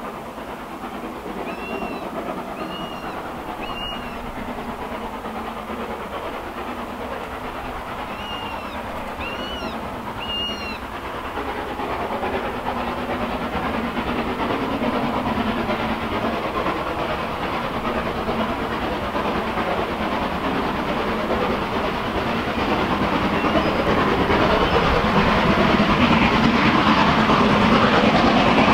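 LSWR Urie S15 4-6-0 steam locomotive working hard up a steep 1-in-60 bank, its exhaust beat growing steadily louder as the train approaches.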